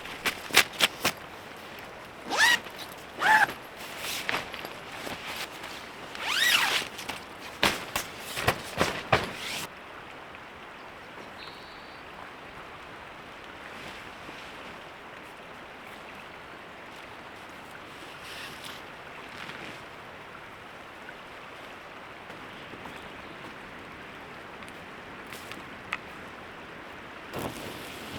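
Steady rushing of a creek, with a cluster of sharp clicks, knocks and short squeaks during the first ten seconds or so.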